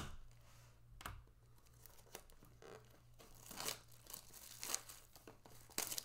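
Clear plastic shrink wrap being torn and crinkled as it is stripped off a cardboard trading-card box, in several short rustling bursts, with a sharp tap right at the start.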